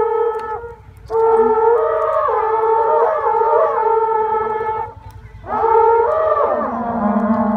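Several horagai conch-shell trumpets blown together by Shugendo yamabushi: long overlapping held tones that bend and fall at the ends of the blasts. The blowing breaks briefly twice, about one second and five seconds in, and near the end one horn drops to a much lower note.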